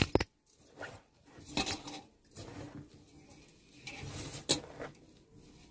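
A hand mixing chopped spinach into rice flour and gram flour in a bowl for palak vada dough. Soft rustling is broken by about three short clinks, near the start, after about a second and a half, and towards the end.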